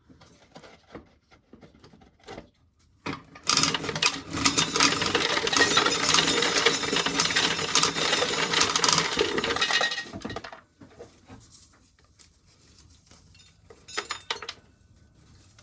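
Corn sheller stripping an ear of dried corn for about seven seconds, the kernels rattling and clinking into a metal can, then a few scattered clicks of loose kernels.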